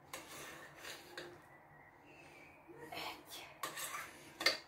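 Faint kitchen handling noises: a few soft scrapes and light knocks of utensils against a bowl, with a sharper click near the end.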